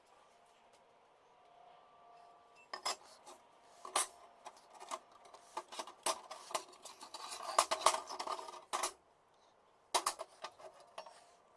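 Steel circular saw blades clinking and scraping against one another as they are handled and stacked. After a quiet start come scattered sharp clinks, then a denser run of clatter, a brief pause, and a few more clinks near the end.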